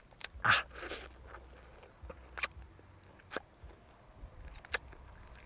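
A person biting and chewing cooked duck, with a few short crunches and mouth clicks scattered through; the loudest crunch comes about half a second in.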